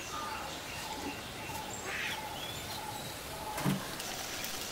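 Birds chirping now and then over the steady hiss of curry cooking in a clay pot on a wood fire, with one brief knock about three and a half seconds in.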